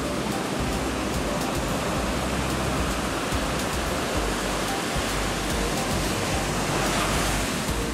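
North Sea surf breaking on a sandy beach: a steady, even wash of waves.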